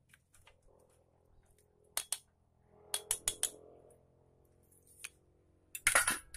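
Small metal and plastic clicks of a motorcycle carburetor's parts being handled as the fuel float is taken out. There are two clicks about two seconds in, a quick run of four a second later, and a louder short rattle of clicks near the end.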